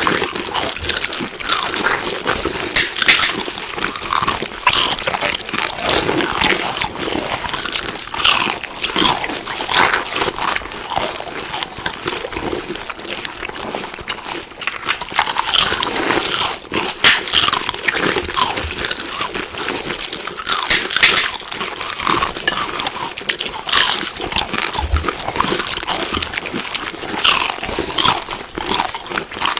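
Close-up crunchy chewing and biting of food, a steady run of irregular crackling crunches.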